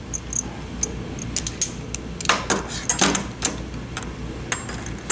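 Light, irregular metallic clicks and clinks of steel tool parts handled and threaded together: a blind-bearing puller's expandable collet being screwed onto a slide hammer by hand.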